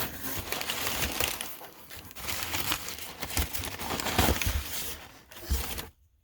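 Shipping-box packaging being pulled out and crumpled: a dense crinkling and rustling with scattered low knocks, stopping abruptly about six seconds in.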